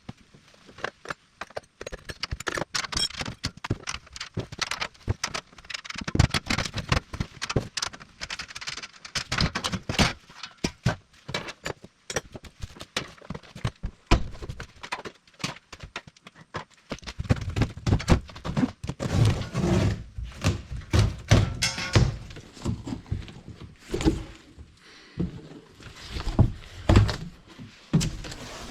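Hands opening up the packaging of a new concrete mixer: a long run of knocks and clunks over rustling and scraping, the knocks heavier and more frequent over the last ten seconds or so.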